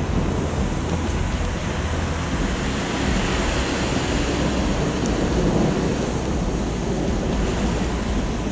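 Thunderstorm downpour and wind making a steady, dense roar of noise, with a constant low rumble underneath.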